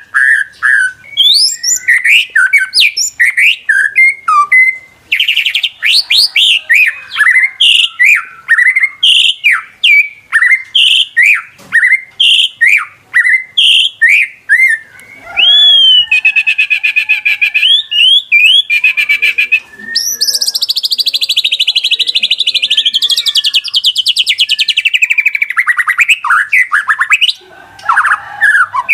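White-rumped shama (murai batu) singing a long, varied song of loud whistled phrases, slurred notes and quick trills, with a long harsh rattling chatter in the later part.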